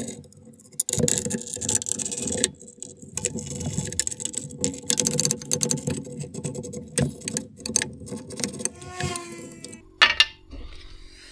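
Hand tools working on bolts: a ratchet wrench clicking in irregular runs and metal parts rattling as a bracket is unbolted from a steel vehicle frame, with one loud metallic clank about ten seconds in.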